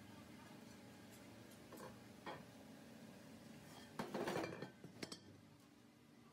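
A few light metallic clinks and knocks of metal objects being handled, the loudest a short clatter about four seconds in, over a faint steady hum.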